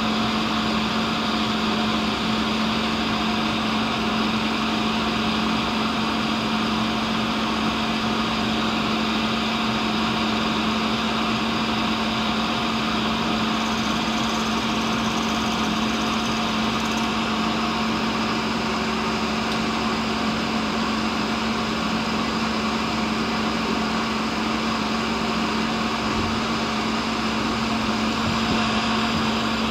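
Cincinnati tool and cutter grinder running, wheel spindle and workhead turning the endmill while its cutting flutes are circle ground. A steady motor hum with one strong low tone, unchanging throughout.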